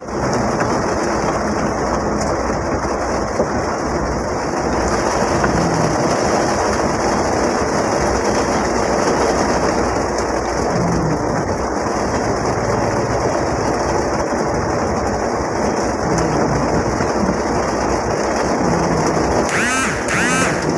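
Heavy rain drumming steadily on a Mitsubishi L300 van's roof and windows, heard from inside the cab over engine and road noise as the van drives. Near the end come two short warbling chirps.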